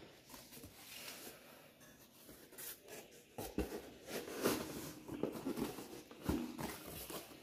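Packaging being handled as an item is worked out of it: rustling, scraping and small knocks, busier and louder from about halfway.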